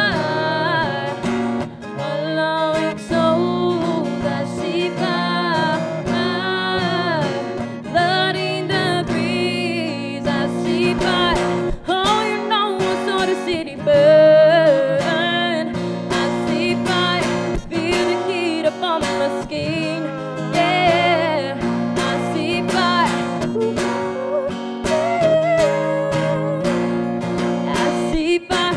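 Steel-string acoustic guitar strummed live, with singing over it.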